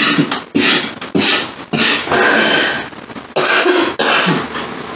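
A sick woman coughing hard in a fit of about five harsh coughs, one longer and drawn out in the middle.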